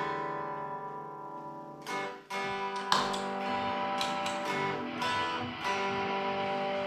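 Electric guitar played clean through the amp: a series of strummed chords, each left to ring before the next one.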